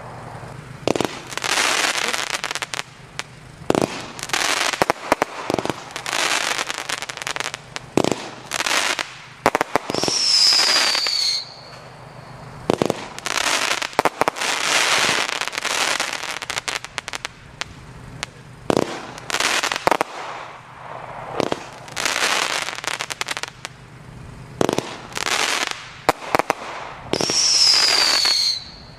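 WECO Final Showdown compound firework battery, up to 13 mm calibre, firing shot after shot: sharp launch thumps, each followed by a spell of crackling. A falling whistle sounds twice, about ten seconds in and again near the end.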